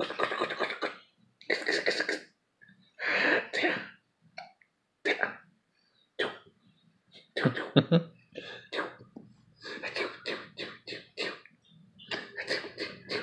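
Young baby making a run of short throaty grunts and cough-like sounds, in bursts a second or so apart that come quicker in the second half.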